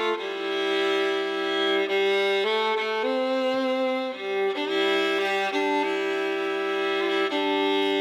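Instrumental music: a slow melody of long held bowed-string notes, fiddle-like, changing every second or two, with no beat or bass.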